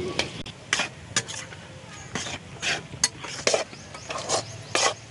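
A steel ladle stirring and scraping goat blood fry around a black kadai in uneven strokes, about two a second, with the food sizzling in oil underneath.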